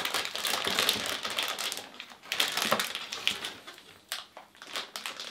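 Crinkling and rustling of a silver foil packaging bag and cardboard box as it is pulled out and handled, in irregular bursts of crackle that thin out toward the end.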